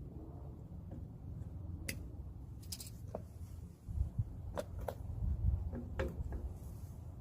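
A few sharp metal clicks and clinks, spread out over several seconds, from drum brake shoe hardware and tools being handled, over a steady low rumble.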